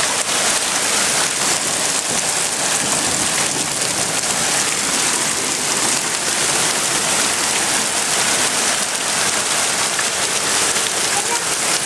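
Rain and hail coming down hard, a steady dense patter and hiss that does not let up.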